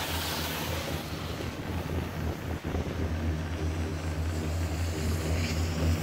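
Open-air Doppelmayr cabriolet gondola cabin running along the haul rope: a steady low hum with wind rushing past. It grows louder and rougher near the end as the cabin reaches a lift tower.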